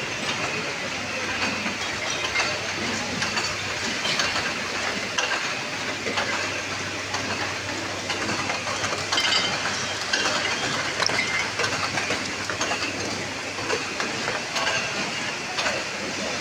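Bottling-line machinery running steadily with a low hum, and glass bottles on the conveyor clinking and clacking against each other in many quick, irregular knocks.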